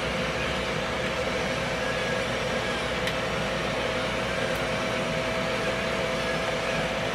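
Electric pepper mill's small motor running steadily as it grinds black pepper, with an even whirr and a faint constant hum.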